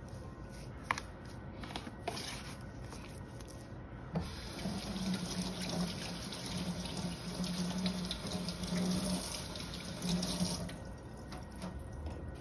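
A water tap running into a sink, with a low steady hum, from about four seconds in until shortly before the end. A few small clicks and knocks come before it.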